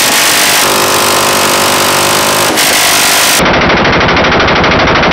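Electrically driven six-barrel 7.62 mm minigun firing a long continuous burst, a solid dense roar of rounds. About three and a half seconds in, the sound changes abruptly to a sharper, very fast even rattle.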